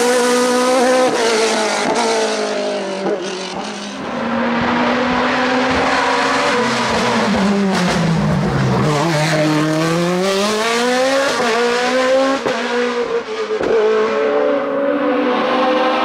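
Hill-climb race car engine at high revs, its pitch repeatedly rising and falling, dropping to its lowest about halfway through before climbing back up.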